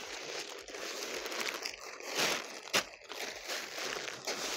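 Large newspaper sheet rustling and crinkling as it is folded over on itself and pressed flat, with a sharp crackle of paper a little before three seconds in.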